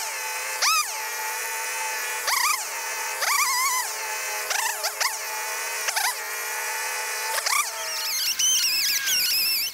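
Stihl MS290 Farmboss two-stroke chainsaw idling and blipped to high revs about eight times in short bursts, then held at full throttle near the end as it cuts into a branch, its pitch wavering under the load.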